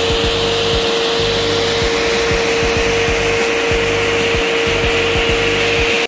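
Vacuum cleaner running as its nozzle sucks up wood shavings and sawdust from a drilled wooden tabletop: a steady rushing noise with a constant motor whine, cutting off suddenly at the end.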